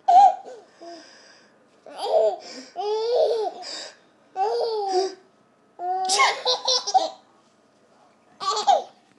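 A baby laughing in about six short, high-pitched bouts with brief pauses between them.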